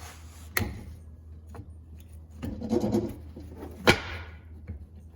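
A steel pinion flange being handled and fitted onto a Ford 8.8 differential's pinion: metal scraping and clinks, with one sharp clank about four seconds in that rings briefly as it fades.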